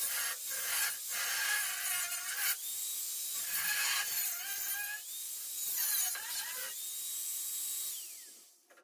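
Handheld angle grinder with a cut-off wheel cutting through the steel sheet of a Jeep YJ body's rear corner. The whine dips each time the wheel bites and recovers between passes, then the grinder winds down and stops near the end.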